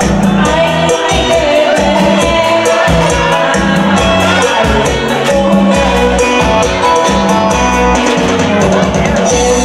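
Pop song music with a steady beat and a bass line under a melody, in an instrumental passage without sung words.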